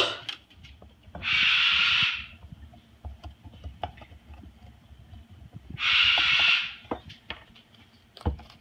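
Moluccan cockatoo giving two harsh, hissing calls, each about a second long and a few seconds apart. Between them come small clicks and crunches of its beak working the hard squash rind, and there is a sharp knock at the very start.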